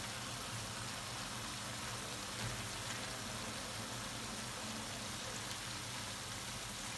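Chopped sarmaşık shoots frying in hot oil in a pan: a steady sizzle.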